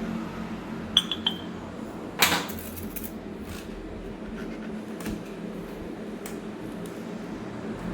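Metal parts and tools being handled on a workbench: a ringing metallic clink about a second in, a short burst of noise just after two seconds, then a few faint ticks over a low steady hum.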